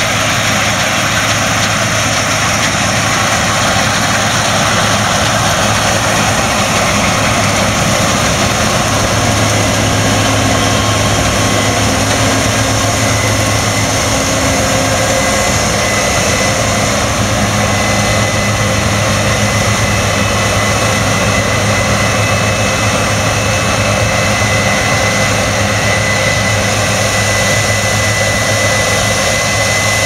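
Case IH 8010 combine harvester running while harvesting grain: a loud, steady drone of engine and threshing machinery with a constant low hum and a faint high whine that grows a little plainer in the second half.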